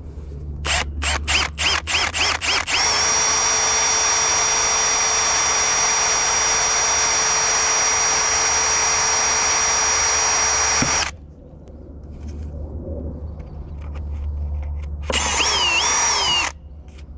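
A power drill starts with a series of short trigger bursts, each rising in pitch. It then runs steadily at full speed with a high whine for about eight seconds and cuts off suddenly. A second short run, its whine dipping and rising, comes near the end. This is drilling into the sealed transmission of a John Deere D105 riding mower.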